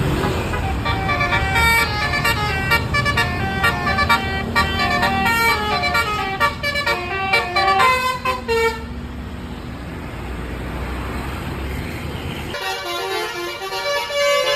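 Bus telolet horn, a Basuri multi-tone horn, playing a fast tune of short stepped notes for about eight seconds over the bus's engine and road noise. After that only the engine and road noise remain, until music cuts in abruptly near the end.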